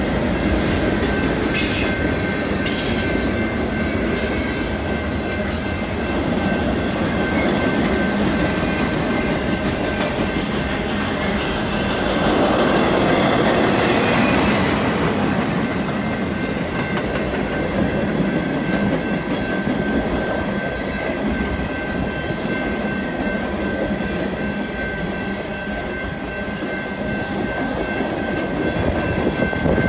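Freight cars rolling over a road grade crossing: a continuous rumble and clatter of steel wheels on rail, with a few sharp metallic squeals or clanks in the first few seconds. A steady ringing tone runs underneath, the crossing's warning bell sounding while the gates are down.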